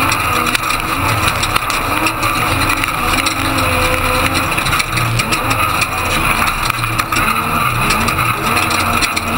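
Ford Ranger Class 1450 desert race truck's engine running hard, its pitch rising and falling as the driver works the throttle, over a constant rush of wind and off-road noise with scattered knocks from the rough ground, heard from on board.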